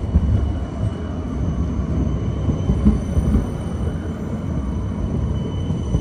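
Low, steady rumble of a light rail train running on test, with faint steady high-pitched tones above it.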